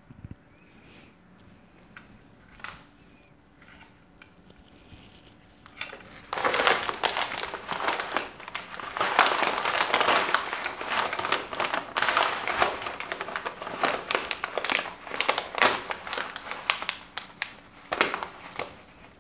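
A polythene food packet crinkling and crackling as it is handled, dense and continuous from about six seconds in, after a few faint clicks.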